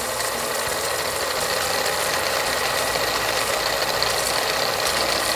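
A continuous rapid rattling sound effect, like a very fast ticking, played steadily as quiz thinking-time while the question is on screen.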